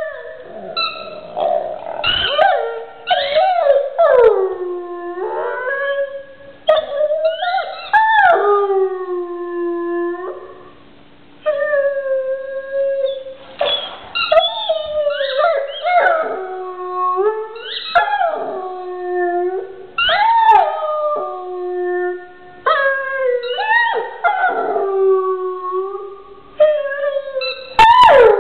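Black Labrador howling, a long run of wavering howls, each rising and then sliding down in pitch, with short yips between, while it mouths a rubber toy.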